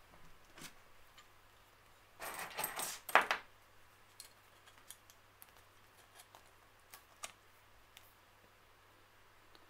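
Small galvanised steel J-clips clinking together, with a plastic bag rustling, in a flurry about two seconds in that lasts a little over a second, then a few scattered light metal clicks as a clip is fitted into the jaws of J-clip pliers.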